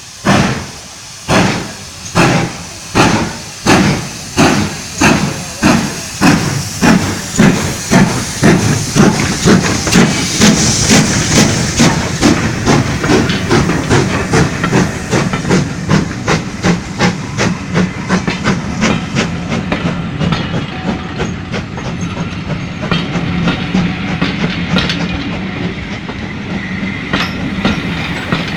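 GWR Hall class 4-6-0 steam locomotive Kinlet Hall pulling away with its train. Its exhaust chuffs start about a second apart and quicken steadily to several a second. They then blur into a steady rumble, with light clicking of the coach wheels over the rail joints near the end.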